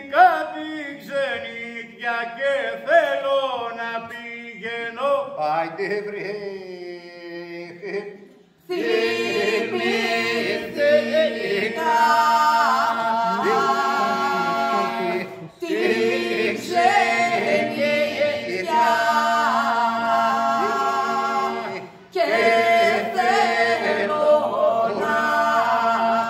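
Unaccompanied group singing in the manner of Epirote polyphonic song: a lone voice leads with a wavering, ornamented line for about the first eight seconds, then the other voices come in, holding a steady drone beneath the lead in long phrases.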